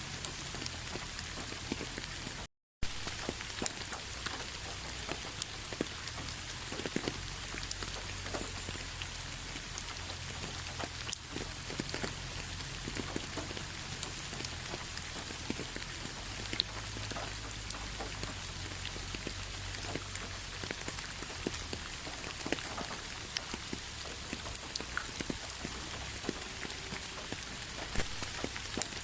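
Steady rain falling, an even hiss with many individual drops ticking. The sound cuts out for a split second about two and a half seconds in.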